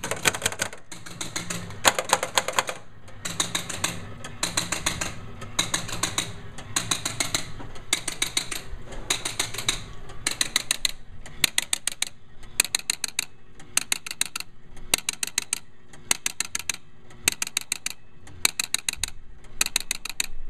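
Electromechanical pinball machine's relays and stepper units clattering in rapid bursts of clicks that repeat about once or twice a second.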